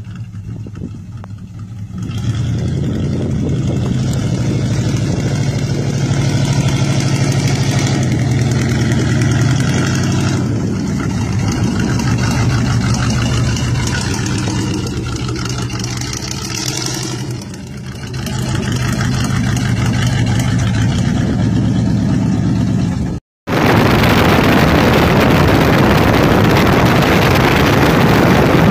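1988 Jeep Comanche's swapped-in 350 V8 running loud, its pitch stepping up and down several times with the throttle. After a cut about three-quarters of the way through, a loud, even rush of wind and road noise as the truck drives.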